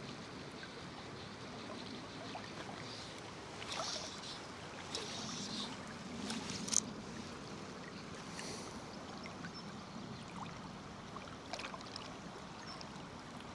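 River water flowing in a steady rush, broken by a few short sharp clicks, the loudest a little under 7 seconds in.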